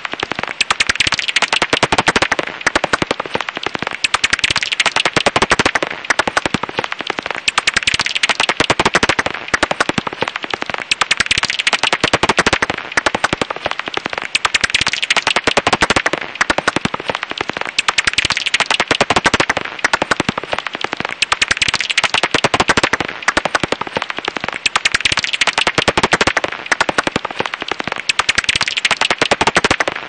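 Japanese house bat (Pipistrellus abramus) calls, heard as a rapid, continuous crackle of sharp clicks that grows louder and softer every few seconds.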